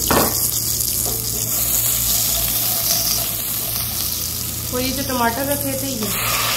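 Ginger-garlic paste and cumin seeds sizzling in hot oil while they are stirred with a slotted spoon.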